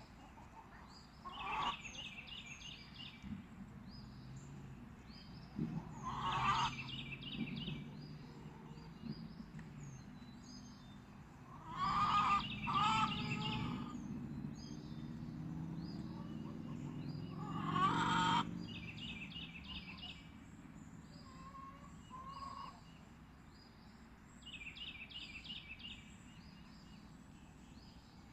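Birds calling over and over: faint short chirps throughout, groups of rapid chattering calls, and four louder calls spaced a few seconds apart.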